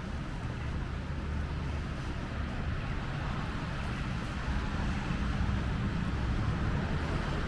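Street traffic in a city: a steady low rumble of vehicles, with a hiss that grows a little louder in the second half as traffic passes closer.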